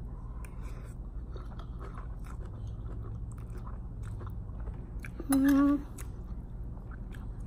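Close-up chewing of a mouthful of instant ramen noodles and cucumber salad, with many small wet mouth clicks. About five seconds in, a short hummed "mm" from the eater.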